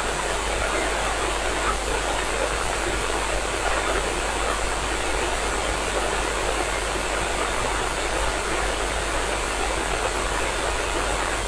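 Steady radio static: the hiss of a receiver tuned to the International Space Station's 145.8 MHz voice downlink while no voice is on the channel, between the astronaut's transmissions.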